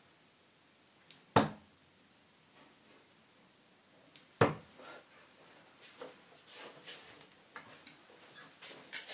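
Darts striking a Unicorn Eclipse Pro bristle dartboard: two sharp thuds, about a second and a half in and about three seconds later. Near the end, a string of small clicks and knocks as the darts are pulled back out of the board.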